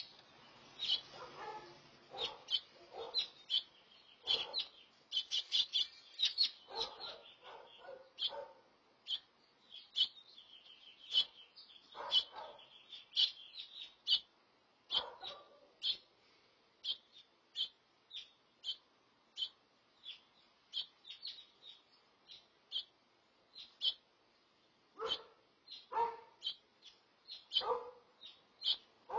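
House finch chirping: a long series of short, high chirps, about one or two a second. Several lower, louder short sounds come in clusters near the start, around the middle and near the end.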